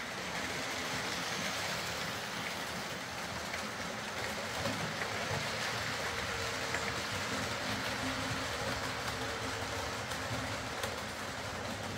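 OO-gauge model trains running round a layout: a steady rumble of wheels on the track, with a faint motor hum.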